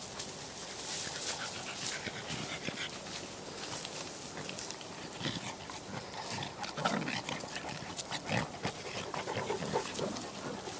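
Dogs at rough play, making short irregular vocal sounds that come thicker from about halfway, over scattered crackling ticks.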